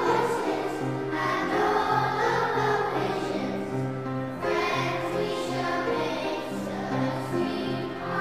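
Closing music of a choir singing held notes in phrases, with accompaniment.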